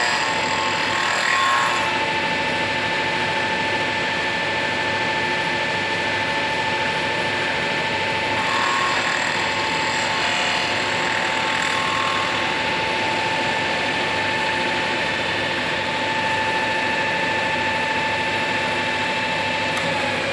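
Slot milling machine running, a steady motor whine over dense mechanical clatter.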